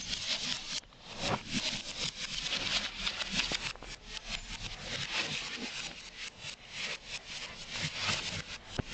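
A West Highland white terrier scrambling about on a vinyl tile floor: quick, uneven scratching and rasping from its claws on the tiles, with one sharp click near the end.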